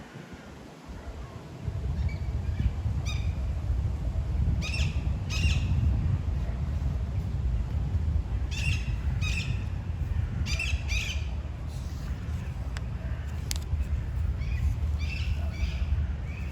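Wind buffeting the microphone as a low rumble that starts about a second and a half in, while a bird gives short, harsh calls, mostly in pairs, several times over it.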